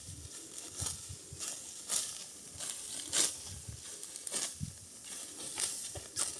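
Dry, ripe wheat stalks crackling and rustling in a run of short, crisp strokes, one or two a second, some with a soft thud.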